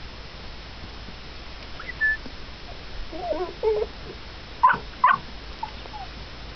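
Puppy whimpering and yelping: wavering whines about three seconds in, then two sharp yelps a second later, followed by a few faint whimpers.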